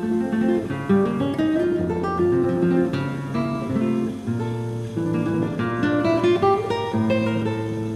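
Background music: an acoustic guitar playing an instrumental passage of plucked and strummed notes.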